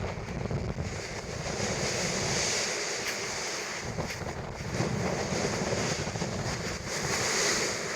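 Sea waves washing up the beach, surging twice, with wind rumbling on the microphone.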